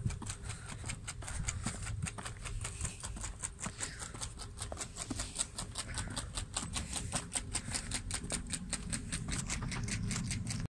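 Footsteps crunching in thin fresh snow: a quick, even crunching about four or five times a second.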